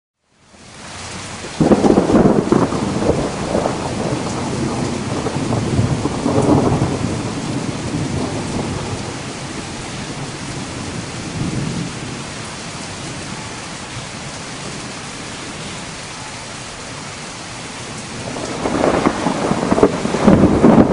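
Thunderstorm from a supercell: rolling thunder over a steady hiss of rain. The rumbling swells a couple of seconds in, again around six seconds, and builds strongly near the end.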